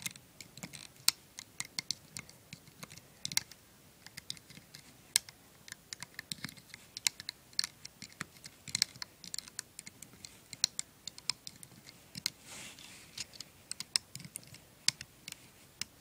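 A hook clicking and tapping against the plastic pegs of a rubber-band loom as rubber bands are hooked and pulled forward into a single chain: sharp, irregular clicks, two or three a second, with a brief rustling scrape about twelve seconds in.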